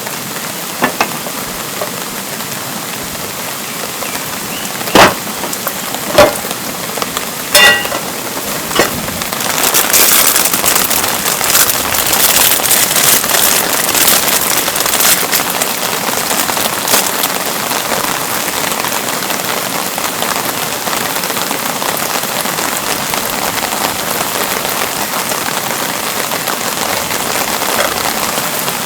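Steady rainfall, with a few loud single drops striking close by about 1, 5, 6 and 8 seconds in. It is followed by a denser patter of heavy drops from about 10 to 17 seconds.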